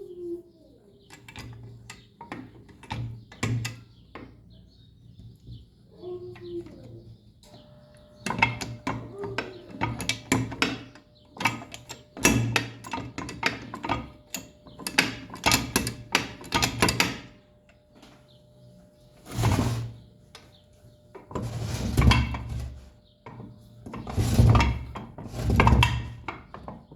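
Repeated sharp metallic knocks and clatter from work on a jack, dense in the middle, then several longer noisy rasping bursts of about a second each in the second half. A few short bird calls sound in the first third.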